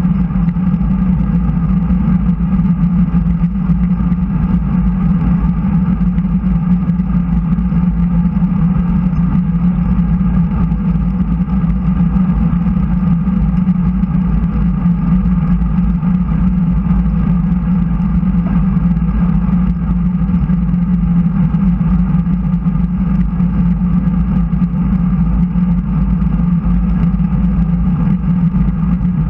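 Steady rush of wind and tyre noise from a road bike riding at speed on smooth asphalt, picked up by a bike-mounted action camera, heavy and muffled in the low end.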